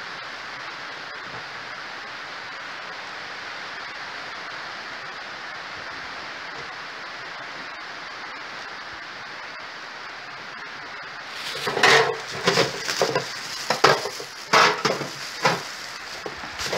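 A steady even hiss, then, about two thirds of the way in, loud irregular crinkling and rustling of a white plastic bag being handled and tied.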